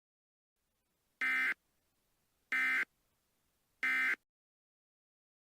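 Emergency Alert System end-of-message data tones: three short, identical bursts of digital data tone, a little over a second apart, marking the end of the alert.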